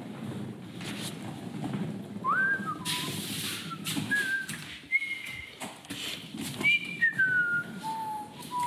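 A man whistling a halting tune of short, separate notes that slide up and down, starting about two seconds in, off-key: he can't hit a single tone. Low rustling and a few sharp knocks run underneath.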